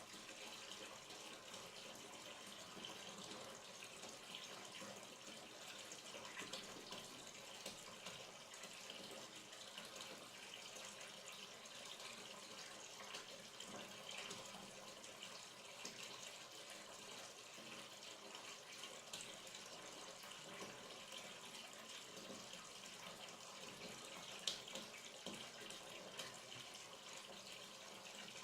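Hot water running steadily from the tap into a bathtub as the bath is filled, faint and even, with one brief sharper sound near the end.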